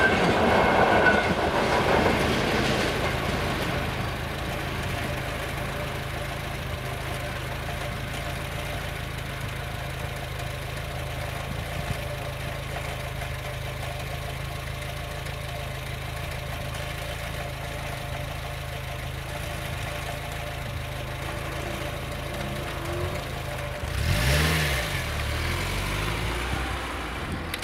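The last carriages of a passenger train pass over a level crossing for the first couple of seconds. A car engine then idles steadily at the barrier, and about three seconds before the end a car moves off over the crossing.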